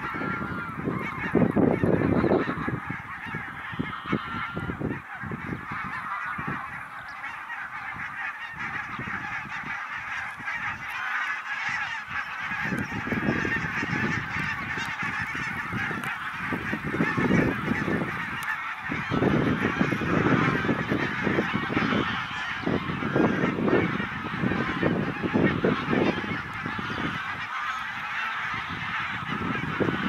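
A large flock of greylag geese honking and calling, a dense unbroken chorus of many overlapping calls, with a low rumble coming and going beneath it.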